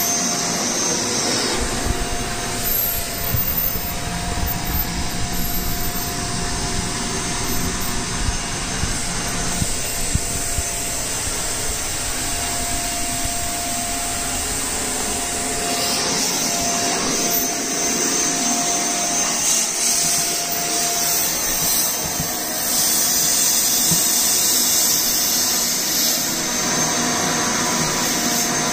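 Vacuum cleaner running steadily, sucking the air out of a mattress storage bag through its suction valve to compress a spring mattress. A high hiss drops out after a second or so and returns about halfway through.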